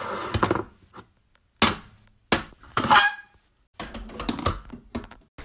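Clunks and knocks from handling a glass goblet at a coffee maker, about five separate knocks, with a short ringing tone about three seconds in.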